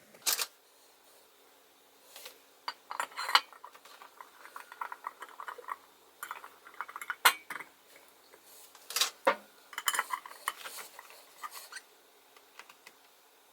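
Irregular metallic clinks and taps of tools and small metal parts being handled while a Coleman 200A gasoline lantern's air pump is dismantled.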